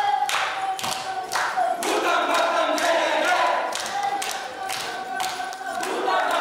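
A group of voices singing a folk song together, over a steady beat of sharp strokes about twice a second.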